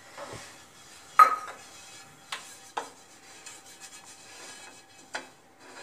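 A brush spreads oil over a hot non-stick dosa tawa with a faint rubbing sound, broken by a few light clinks of utensils against metal. The sharpest clink, with a short ring, comes about a second in; others follow near two and three seconds and near the end.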